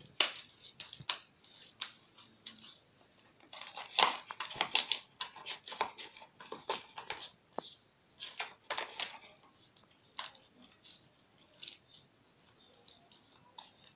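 Slime being mixed by hand in a container: irregular clicks, scrapes and sticky squelches, in bunches with short pauses.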